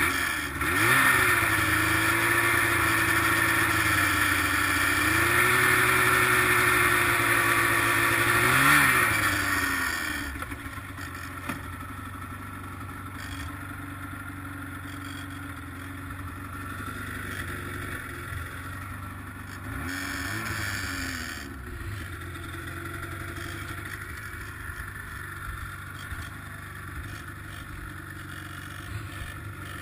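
Arctic Cat ZR800 snowmobile's two-stroke engine running hard under throttle at a fairly steady pitch, with a quick rev about nine seconds in. It then backs off to a quieter, steady running, with one brief rise and fall in pitch about twenty seconds in.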